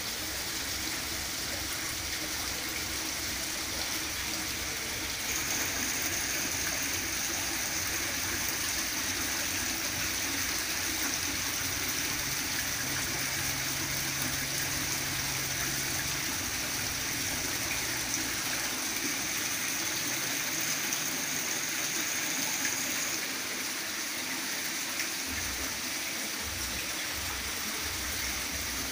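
Water from an indoor rockery fountain falling in thin cascades from the artificial rocks and splashing steadily into its pond.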